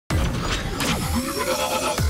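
Electronic intro music with a gritty, buzzing synth texture and low bass, starting abruptly. About a second in, a sound sweeps downward in pitch.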